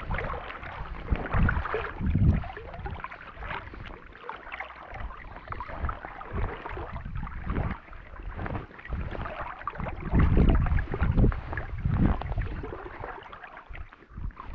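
Gusty wind buffeting the microphone, rising and falling unevenly with stronger gusts near the start and about two-thirds of the way through, over water sloshing and lapping close by.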